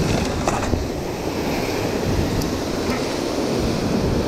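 Sea surf washing and breaking against a rocky shore, a steady rushing noise, with wind rumbling on the microphone.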